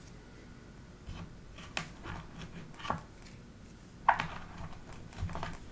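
Plastic embroidery-floss bobbins and storage boxes being handled: a few scattered light clicks and taps, the sharpest about four seconds in.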